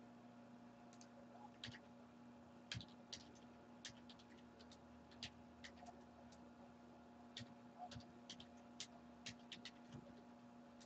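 Near silence with faint, scattered clicks and taps, about twenty at irregular intervals, some coming in quick runs of two or three, over a low steady hum.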